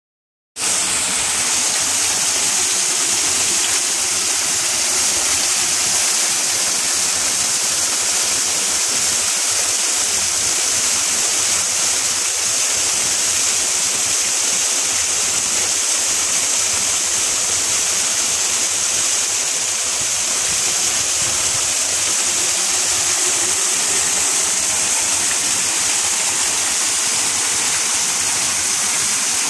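Small waterfall spilling between boulders into a shallow rocky pool: a steady, hissy splashing of falling water.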